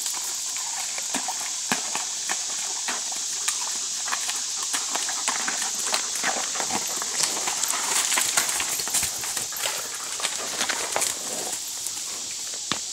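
Tennessee Walking Horse's hooves clopping and splashing at a walk through a shallow, rocky creek bed: a run of irregular knocks and splashes, thinning out near the end, over a steady high hiss.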